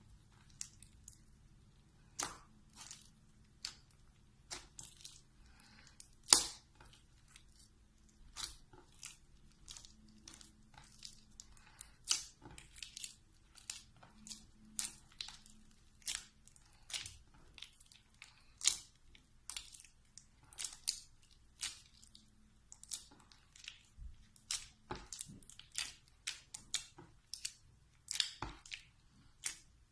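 Slime being squeezed and stretched by hand, giving irregular sharp crackles and pops, a few a second, the loudest about six seconds in.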